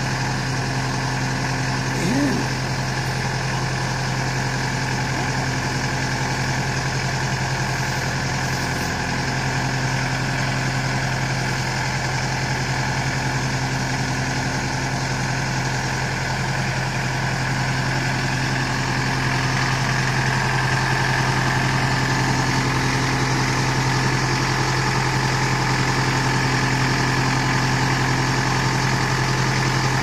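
LS 4047 compact tractor-loader-backhoe's diesel engine running steadily while its backhoe is worked, getting a little louder about two-thirds of the way through.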